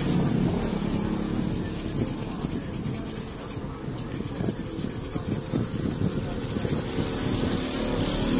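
Carbon brush for an electric drill being rubbed by hand against the face of an abrasive cut-off disc, irregular scraping strokes, to thin down a replacement brush that is still too big to slide into its holder.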